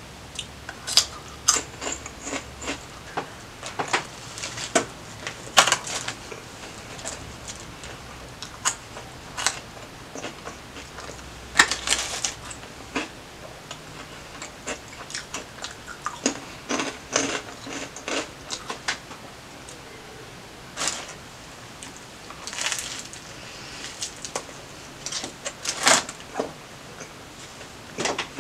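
Close-up crunching and chewing of lime Flamin' Hot Cheetos in the mouth: irregular sharp crunches, several a second in runs, with short pauses between bites.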